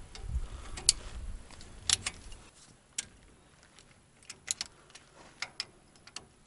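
Scattered sharp metallic clicks and clinks from a socket ratchet and the loosened spindle bolts of a Dana 44 front axle as they are worked out, with a low rumble over the first couple of seconds.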